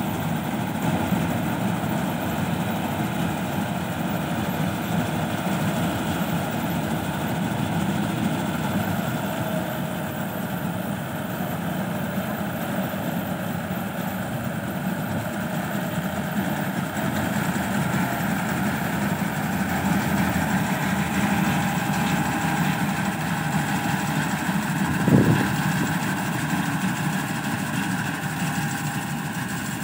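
Combine harvester running steadily while cutting paddy, a continuous engine and machinery hum. A single short knock about twenty-five seconds in.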